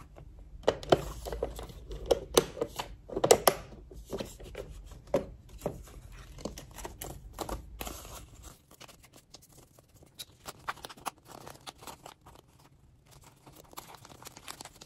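Paper banknotes rustling and crinkling as they are handled and slid into clear plastic binder pockets, with the plastic sleeves crackling. The sound is busy in the first half and thins to scattered crackles after about eight seconds.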